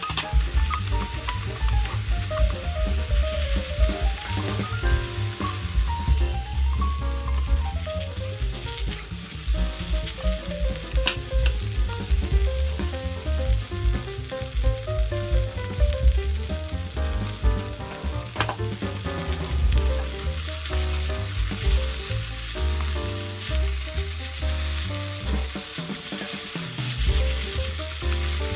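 Kimchi fried rice sizzling in a nonstick wok, with a silicone spatula stirring and scraping it around the pan.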